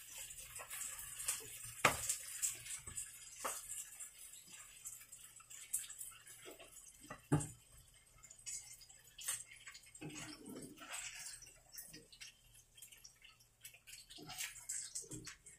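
Scattered light clicks and knocks of kitchen utensils and dishes being handled, over a faint hiss, with two louder knocks about two and seven seconds in.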